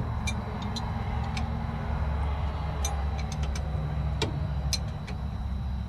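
An engine running steadily at idle, with scattered light metallic clicks and taps from wrench work on a hydraulic fitting.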